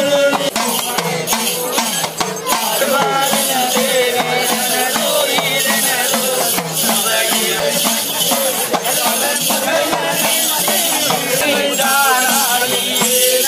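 A group of men singing a devotional chant together, with a metal rattle shaken steadily throughout.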